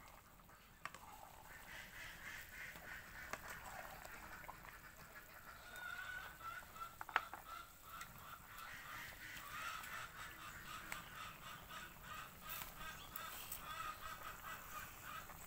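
Domestic waterfowl (geese and ducks) calling in a continuous, fairly faint chorus, with one sharp knock about seven seconds in.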